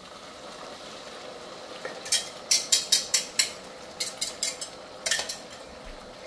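Sauce sizzling softly in a hot wok as it is poured in, with three runs of quick sharp clicks from a metal whisk knocking against the glass measuring cup, ending in a louder knock.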